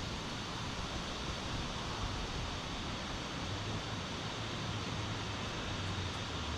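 Wind blowing steadily, a constant rushing hiss with a low rumble underneath.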